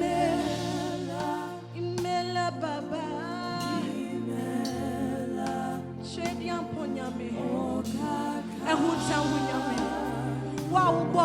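Gospel worship singing: voices sing a slow, sustained melody with vibrato over held keyboard chords and bass notes.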